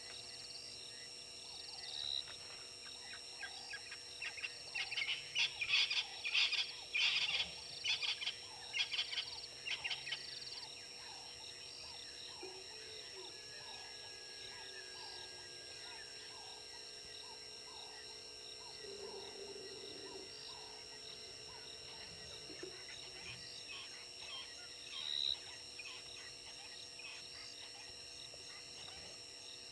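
Wild birds calling in the bush: a rapid run of short, high, repeated notes lasting several seconds, then scattered fainter calls and a single chirp near the end, over a steady faint drone of insects.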